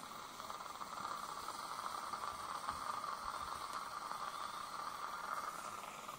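Steady hissing whine from a surgical implant drill running with suction, as a 7 mm guided drill with a 2 mm stopper bores the implant site to a 5 mm depth.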